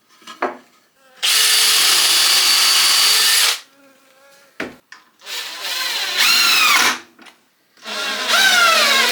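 Power drill running three times into a timber frame: first a steady run of about two seconds, then two shorter runs whose pitch falls as the motor slows under load. This is the drilling and countersinking of pilot holes and the driving of 4x50 wood screws.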